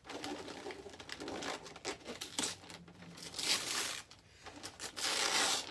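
Gift wrapping paper being torn and crumpled in quick bursts of crinkling, loudest near the end.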